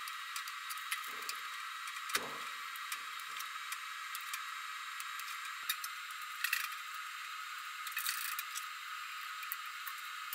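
Light clicks, taps and brief rustles of hands and plastic bar clamps working a rubber tire onto a bandsaw wheel, over a steady hiss.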